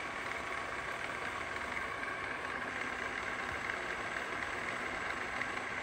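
MAS VR 4 radial arm drill running with its spindle on power feed: a steady mechanical hum from the drill head with a faint steady whine.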